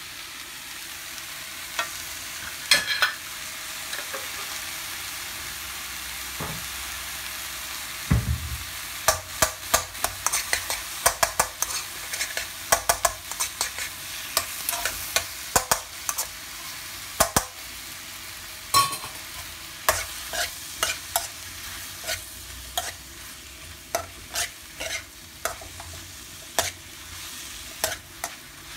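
Sliced mushrooms, peas and onions sizzling in ghee in a black wok, stirred with a metal spoon that scrapes and clacks against the pan. The clacks are few at first and come thick and fast from about eight seconds in.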